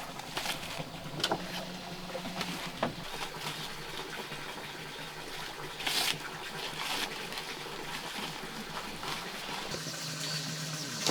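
Running water: a steady watery rush with a few light clicks and knocks, and a louder splash about six seconds in.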